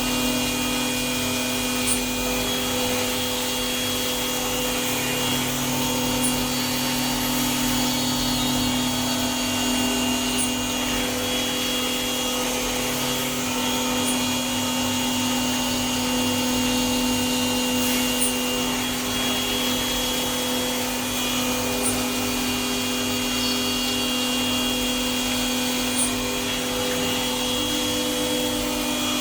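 CNC machine tool running, a steady hum and whine made of several held tones, with a faint high tick about every four seconds.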